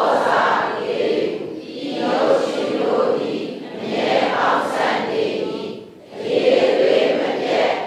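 A class reading a Burmese text aloud together in unison: a mass of voices rising and falling phrase by phrase, with a short pause just before six seconds in.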